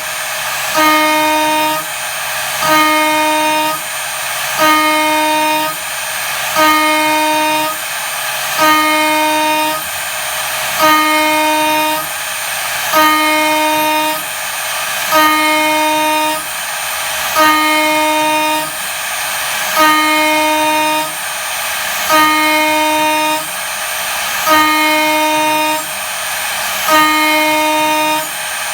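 An 8 mm two-flute end mill spinning at about 19,900 rpm cuts aluminium 15 mm deep in repeated 1 mm side passes. Each pass is a high-pitched whine lasting about a second, one every two seconds, with quieter moments between passes.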